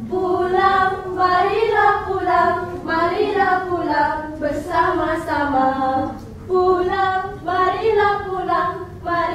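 Female voice singing a slow melody without accompaniment, with long held notes that bend in pitch, and a short break about six seconds in.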